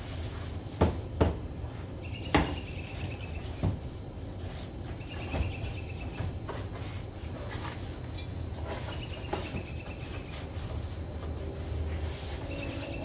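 A long-handled car-wash brush scrubbing a car's front grille and bumper, its head knocking sharply against the car a few times in the first few seconds, over a steady low rumble. A short high trill, like a bird's, repeats about every three seconds.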